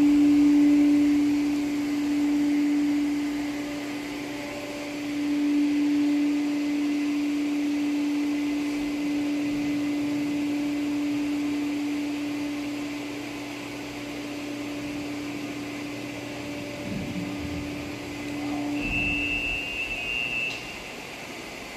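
Electric motor of a lifting mechanism running with a steady hum while it raises its arm. The hum cuts off suddenly near the end, followed by a short high beep.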